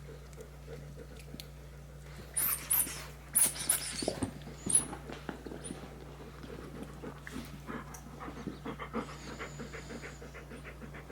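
Small dog panting quickly, a fast run of short breaths filling the second half. A few brief noisy bursts come about two to five seconds in.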